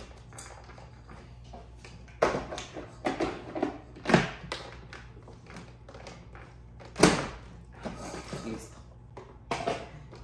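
Kitchen sieve and bowls being handled while almond flour and sugar are sifted: irregular knocks and taps, the loudest about four seconds and seven seconds in.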